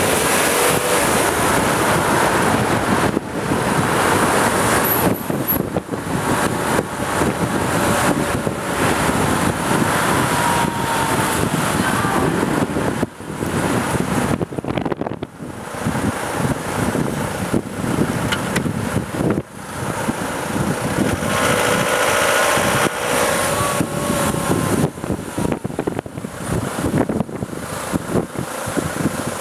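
Loud, uneven road traffic noise heard from a moving bicycle: car and van engines and tyres on the street, with a few brief dips in level.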